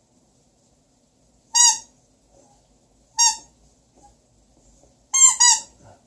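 Squeaky gnome toy squeezed, giving four short high squeaks: one, a second a little over a second and a half later, then two in quick succession near the end.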